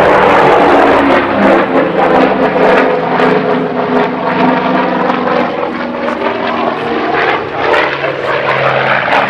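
Grumman F7F Tigercat's twin Pratt & Whitney R-2800 radial engines droning with propeller noise as the fighter flies a display pass. The sound is loudest in the first second, then a little quieter and wavering in level.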